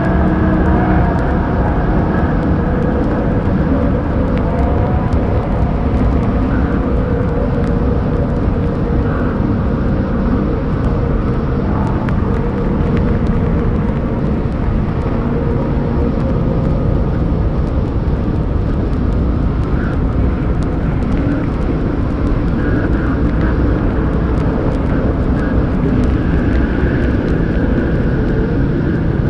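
Slowed-down, heavily reverbed dark ambient noise music: a thick, steady wall of rumbling drone with faint smeared tones of old ballroom-record samples buried inside it and light record crackle.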